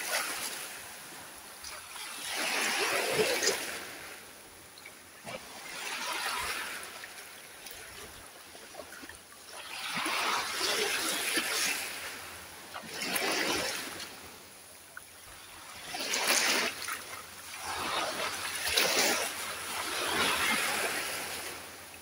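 Small sea waves breaking at the shore and washing up a sandy beach among rocks, each surge of surf swelling and fading away, about seven in a row.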